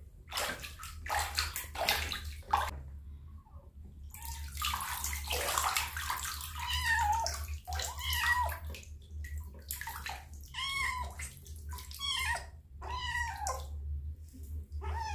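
Water sloshing and splashing in a plastic basin around a wet kitten, then the kitten meowing again and again, about eight short meows, as she is lifted out of the water: a protest, since she least wants to be taken out of the water.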